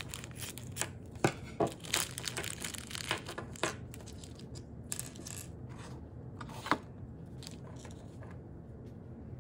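Scissors snipping open a thin clear plastic bag, then the bag crinkling and crackling as small plastic miniature pieces are taken out and handled. The crackles and clicks come thickest in the first four seconds, with one sharp click later on.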